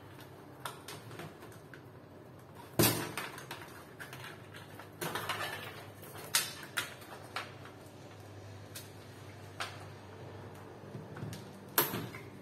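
Cables and connectors clicking and knocking against a computer case as hands route wiring inside it. Scattered light clatter, with two sharper knocks, one about three seconds in and one near the end.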